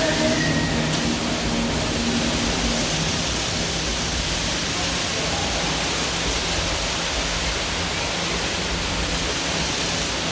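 Steady rush of a large man-made waterfall, with murmuring voices of onlookers faintly under it in the first few seconds.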